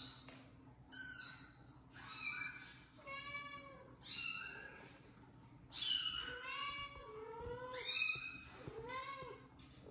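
Kitten meows, played from a phone, coming again and again: high, thin calls, about eight or nine of them, some rising and then falling in pitch.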